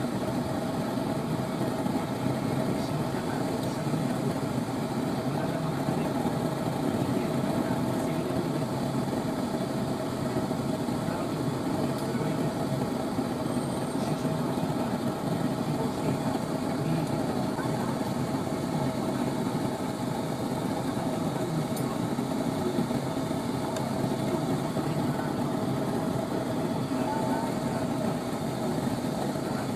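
Lampworking gas torch burning with a steady, constant roar while a glass bead is heated and shaped in its flame.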